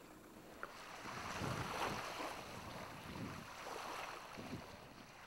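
Wind buffeting the microphone in gusts over a steady rush of sea water along a rocky shore.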